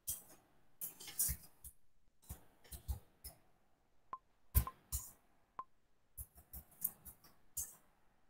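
Irregular, quiet clicks and taps of a computer mouse and keyboard, heard over a video call, with the sharpest click a little past the middle and two of the clicks carrying a brief ping.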